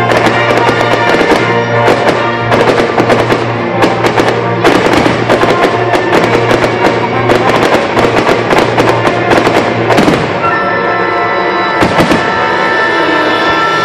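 Aerial fireworks going off in a rapid string of bangs over loud music. The bangs thin out about ten seconds in, leaving mostly the music.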